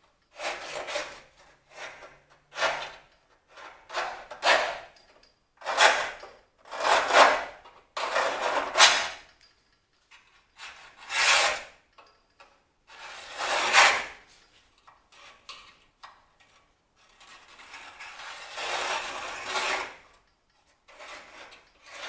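Steel scriber scratching a line into marker-inked sheet steel, in a dozen or so irregular strokes, some brief and some drawn out over a second or more.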